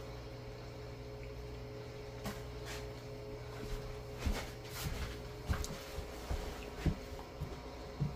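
A run of irregular short knocks and clicks starting about two seconds in, over a steady low room hum.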